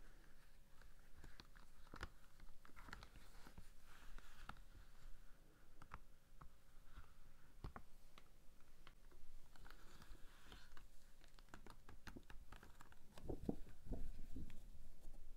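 Cotton-gloved hands handling and stretching an Arena Aquaforce 3D Wave silicone swim cap: faint rustling and scattered soft clicks of the silicone against the glove fabric, with a few louder handling knocks near the end.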